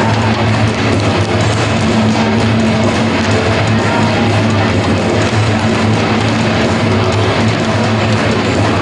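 Loud heavy-metal music with distorted electric guitar and drum kit, played over the arena sound system as a wrestler's entrance theme.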